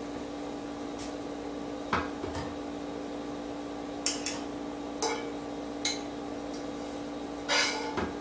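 Kitchen utensils clattering and clinking against a pot and dishes, in scattered short knocks, as boiled chicken breast pieces are lifted out, with a steady low hum underneath.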